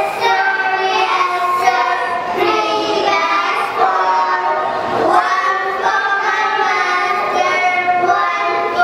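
Young children singing a song together, their voices carrying held notes.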